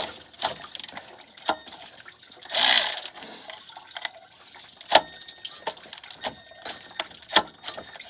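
Ratchet wrench clicking in separate strokes as it loosens the water pump pulley bolts on a Mercedes M112 V6, with a longer rasping stretch about two and a half seconds in.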